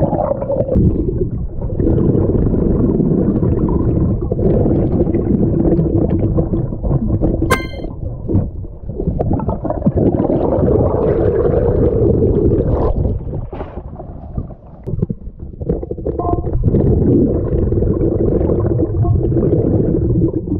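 Muffled, steady underwater rumble and gurgle of water moving around a camera submerged while snorkelling, easing off briefly a little past the middle.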